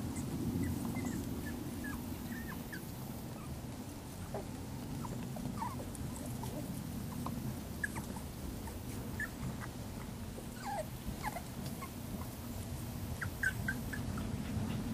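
Five-week-old puppies giving scattered short, high whimpers and squeaks, over a steady low rumble.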